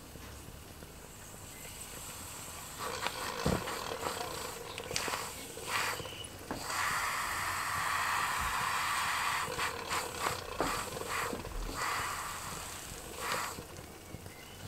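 Model steam beam engine with its small brass boiler, running on steam: an uneven hissing rush of steam that swells loudest in the middle, with scattered light clicks and a low knock.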